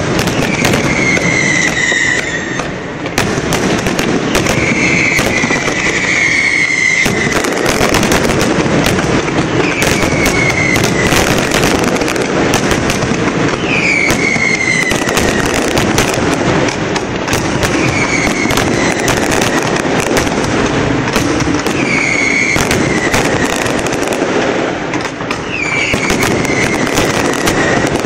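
Fireworks display with dense, unbroken bangs and crackling from shell bursts. A high whistle falling in pitch sounds over them every few seconds.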